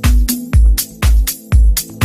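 Electronic dance track with a steady four-on-the-floor kick drum, a little over two beats a second, over a repeating bass line, with sharp percussion in between the kicks.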